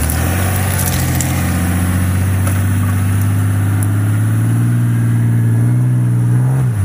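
Ram pickup truck's engine held at steady revs under load as the truck backs out of soft sand and mud ruts, its pitch creeping slowly higher, then falling off sharply as the driver lets off near the end.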